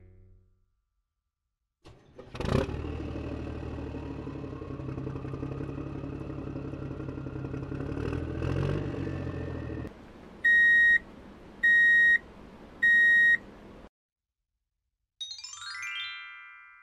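Cartoon truck engine sound effect: it starts with a click, runs steadily with a slowly rising whine, then drops to an idle under three short, loud, high-pitched horn beeps. Near the end comes a quick rising glide that rings and fades away.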